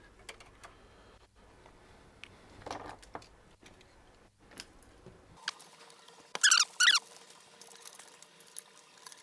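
Hands working on parts inside a computer case: scattered light clicks and taps, then two loud, short squeaks about half a second apart, some six and a half seconds in.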